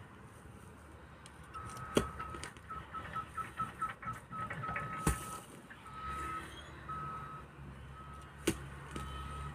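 Pickaxe striking into soil three times, a heavy thud every three seconds or so. Through it runs an electronic beep at one steady pitch, rapid short beeps at first, then longer beeps spaced further apart, over a low hum in the second half.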